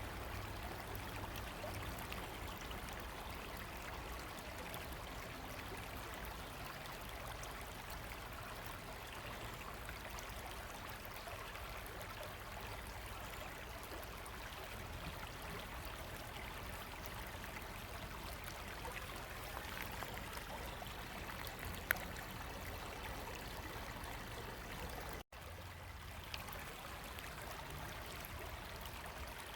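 A river running steadily, with one sharp click about three quarters through and a split-second dropout near the end.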